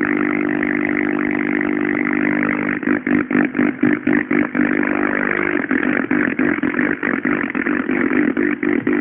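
Electronic buzzing drone made of a stack of steady low tones. About three seconds in it begins to flutter in rapid pulses, several a second, and keeps pulsing to the end.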